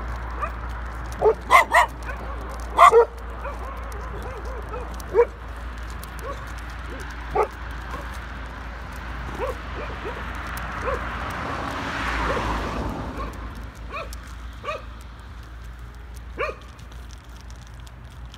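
Dog barking in short, sharp barks: a quick cluster of loud ones in the first three seconds, then single barks spaced further apart. A car passes on the road, swelling and fading around the middle.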